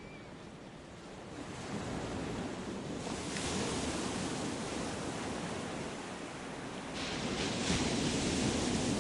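Ocean surf: a rushing wash of waves that swells up about a second and a half in, again at three seconds, and most strongly near seven seconds.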